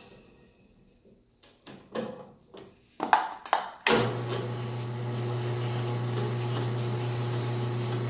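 A few clicks and knocks as a part is handled at the chuck, then about halfway through a drill press motor is switched on and runs steadily with a low hum. It spins a sandpaper-wrapped drill bit that is used to ream out a tight bushing.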